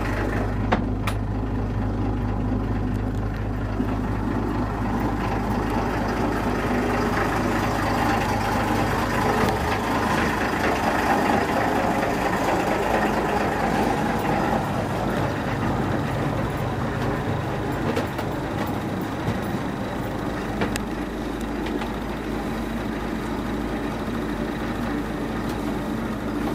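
A 110 hp six-cylinder Mercedes diesel in a barge running steadily just after a cold start, an even drone. About ten seconds in the lowest part of the sound thins a little.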